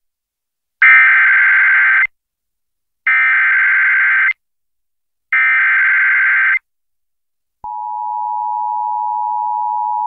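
Emergency Alert System header for a severe thunderstorm warning: three identical bursts of warbling digital data tones, each a little over a second long, with a second's gap between them. About seven and a half seconds in, the steady two-tone EAS attention signal starts.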